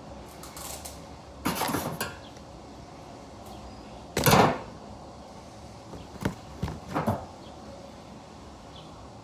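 Duct tape being pulled and torn from the roll and handled: short noisy tearing bursts, a longer one about a second and a half in, the loudest about four seconds in, and a quick cluster of three around six to seven seconds.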